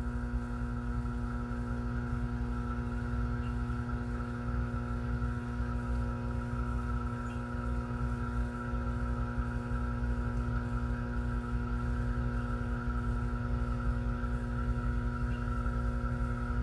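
Steady electrical hum: several held tones that never change, over a low rumble.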